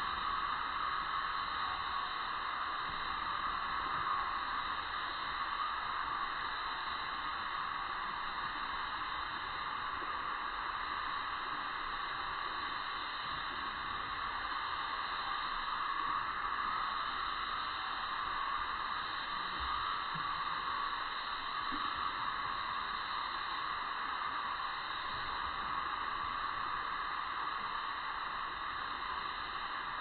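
A steady, even hiss that does not change and holds no distinct calls or knocks.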